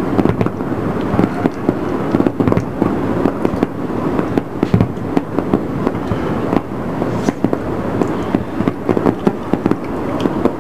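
Fireworks display: a continuous barrage of many overlapping shell bursts, the bangs running together into a low rumble with sharper cracks standing out.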